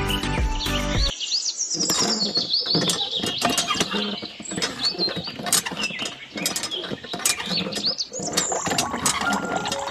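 Background music cuts off about a second in, then small birds chirp and twitter over a dense run of light clicks and taps.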